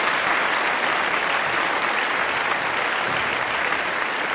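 Audience applauding steadily after a talk.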